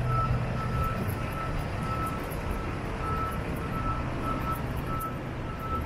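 Ford F750 rollback truck's engine running as the truck drives slowly, with a high back-up-alarm beep repeating at an even pace of about one and a half beeps a second.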